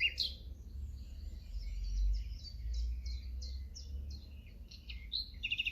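Common nightingale singing: a varied series of short repeated notes, with a faster run of notes near the end. There is a low background rumble under it, and the song cuts off suddenly at the end.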